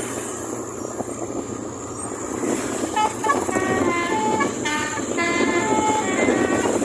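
Telolet horn on a pickup truck playing a quick tune of stepped notes, starting about three seconds in, over a steady noisy background.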